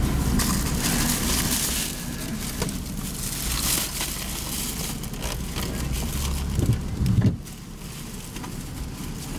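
Thin plastic takeout bags crinkling and rustling as they are handled and lifted into the car, over the low hum of the idling car. The rustling dies down about seven seconds in.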